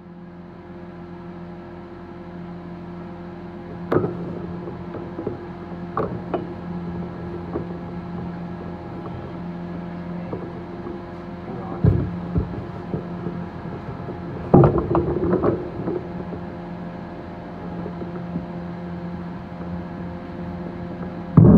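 Cryptocurrency mining rig's fans running with a steady hum, overlaid with scattered knocks and clatter from handling, the loudest cluster about two-thirds of the way through.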